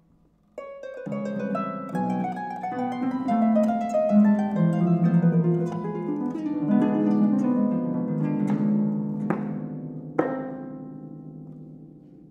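Two concert pedal harps playing a duet: after a brief hush, a flurry of plucked notes comes in about half a second in. Three sharp, strongly plucked accents come late on, then the strings ring and fade.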